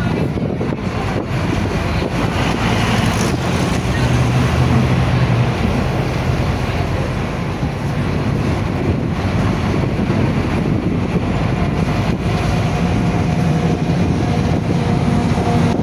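Loud, steady street noise: vehicle engines running, with wind rushing over the microphone.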